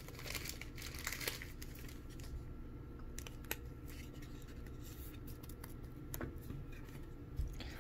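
Trading cards and a clear plastic card sleeve being handled: quiet rustling with scattered light clicks and slides.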